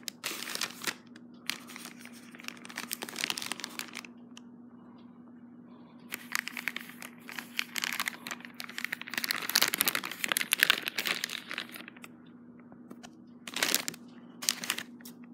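Plastic poly mailer bag crinkling and rustling as it is handled, in irregular bursts with a longer, louder stretch in the middle. A steady low hum runs underneath.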